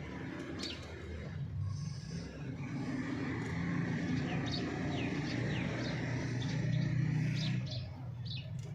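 Hen making a continuous low murmuring cluck that swells and eases, with short, falling high chirps scattered over it.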